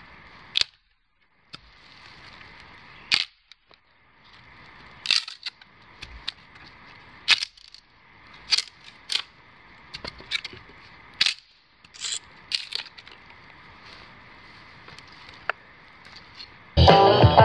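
Dead branch swung against a tree trunk, snapping into shorter firewood lengths: about a dozen sharp wooden cracks spaced a second or two apart over a steady background hiss. Guitar music comes in near the end.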